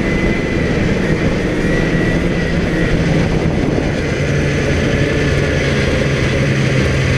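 A 2004 Polaris Pro X 550 snowmobile's two-stroke engine running under way through an aftermarket Snowstuff exhaust can. The engine note climbs a little about halfway through.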